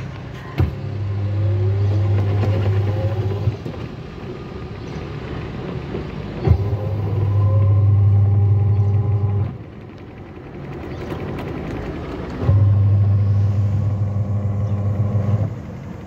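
Top-load washing machine's drive motor and belt-driven pulley running in bursts, as in an agitation cycle. Three times, a click is followed by a steady low hum for about three seconds, then a pause of about three seconds with quieter whirring.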